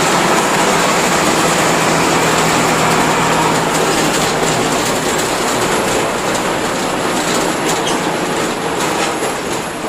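Mercedes-Benz OF-1721 bus with its OM-366LA turbocharged six-cylinder diesel running on the move, a steady engine note over a broad rush of rattle and road noise. The engine note drops away about halfway through and the overall sound slowly eases off.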